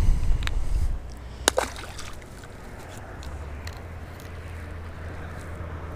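Lake water sloshing around a fishing boat, under a steady low rumble. A louder low burst comes in the first second, and one sharp click about a second and a half in.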